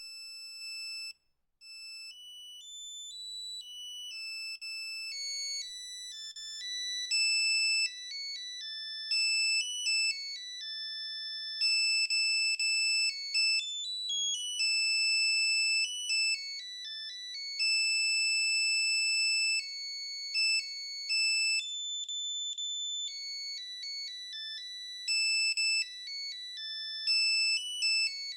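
Nokia 3210 playing a monophonic ringtone: a fast melody of single beeping notes, one at a time. After a brief pause about a second in, it comes back and gets louder over the next several seconds.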